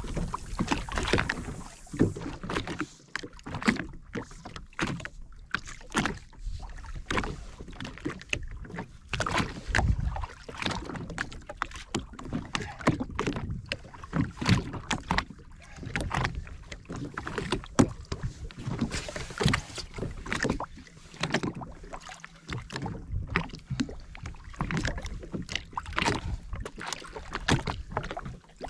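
Irregular knocks and clatter of fishing gear being handled aboard a jet ski at rest, with water lapping at the hull.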